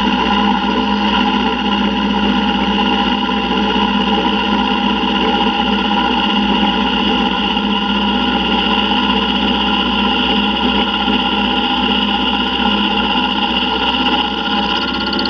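Milling machine running with its end mill cutting out the inside of a T6 turbo exhaust flange: a steady machining drone that stays even throughout and drops slightly in level near the end.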